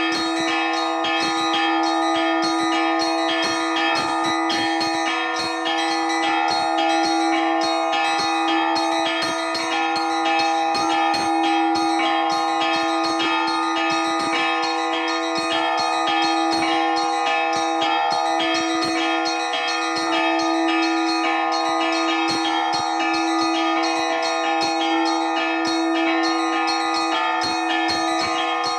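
Church bells rung by hand in an improvised peal: a fast, unbroken stream of strikes on the small high bells over the steady ringing of the larger bells.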